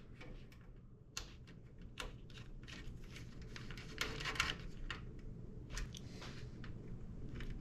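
Small scattered clicks and light scraping of screws being driven into a water-cooling radiator mounted in a PC case, with a brief rustling scrape about four seconds in.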